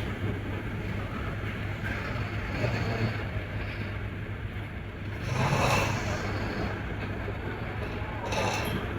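A person snoring over a steady low drone, with a louder noisy snore swelling up about halfway through and another near the end.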